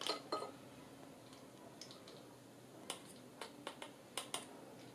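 A plastic measuring spoon clicking and tapping against a small plastic spice container: about eight light, sharp clicks scattered irregularly.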